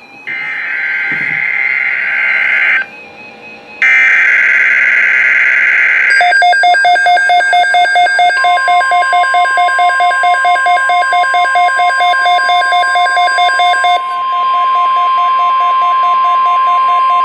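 Emergency alert tones off a NOAA Weather Radio broadcast. First come two warbling bursts of digital SAME header data, which encode the alert. Then a receiver's alarm beeps about four times a second, and from about eight seconds in the steady, long attention tone of the weather radio warning alarm joins it.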